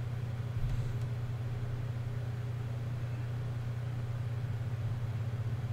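A steady low hum from a running motor, with a soft bump about half a second in.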